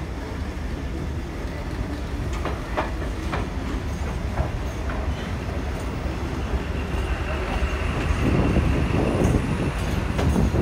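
Passenger train running on the rails: a steady low rumble with a few sharp wheel clicks over rail joints. A high steady wheel squeal joins about seven seconds in, and the rumble grows louder near the end as the train passes close.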